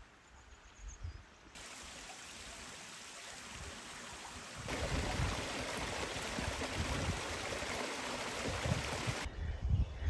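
Steady rushing of running river water. It starts suddenly about a second and a half in, gets louder about three seconds later, and cuts off suddenly near the end.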